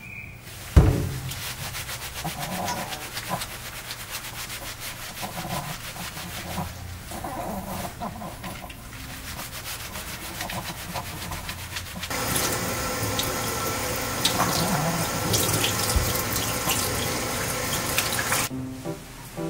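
Hands rubbing shampoo lather into a small dog's wet coat, a squishy scrubbing that follows a sharp thump about a second in. About two-thirds of the way through, a hand-held shower sprayer starts a louder, steady hiss of water rinsing the dog, then stops shortly before the end.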